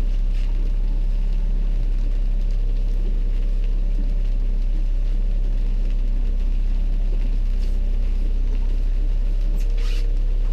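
Fishing boat's motor running steadily, a low even hum. A short brushing noise comes near the end.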